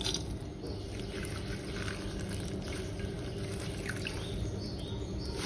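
Water trickling and dripping back into a steel bowl as handfuls of wet chopped radish leaves are squeezed out of their salted soaking water, with a few small splashes over a low steady hum.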